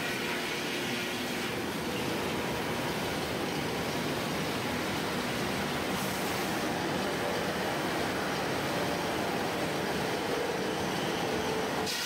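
Sawmill circular headsaw, a toothed top saw above the main blade, spinning with the mill machinery running in a steady, even din.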